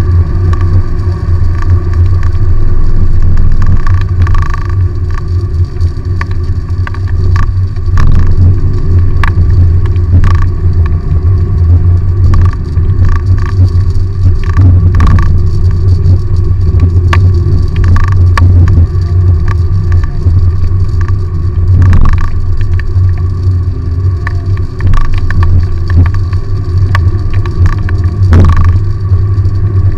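Inside the cabin of a Perodua Bezza with a 1NR-VE engine and Kumho Ecsta V720 semi-slick tyres, driving on a wet highway: a loud steady low drone of road, tyre and engine noise. Scattered short knocks and rattles come through it.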